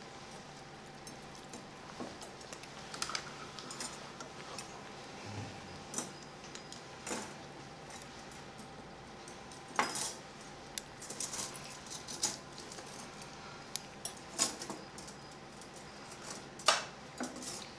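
Stainless-steel surgical instruments, a needle holder and forceps, clicking and clinking at irregular intervals while the skin incision is sutured, over a faint steady hum. The clicks are sharp and scattered, loudest near the end.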